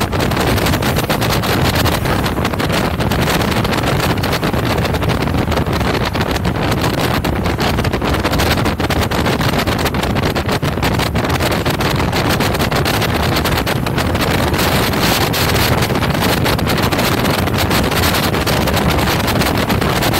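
Speedboat running at speed: a steady rush of engine noise and churning water, with wind buffeting the microphone.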